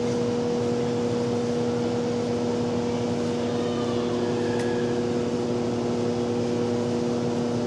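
Steady hum of a ventilation system: an even whir with two or three constant steady tones underneath.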